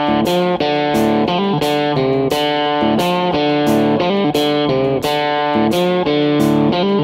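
Background music: guitar-led music with a steady drum beat.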